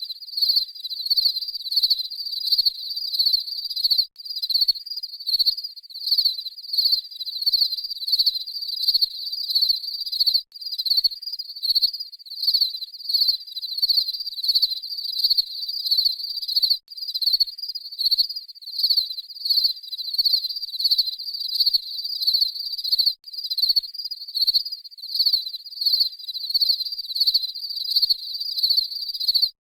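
Crickets chirping in a steady run of short, high trilled chirps, about one and a half a second, with a brief break every six seconds or so.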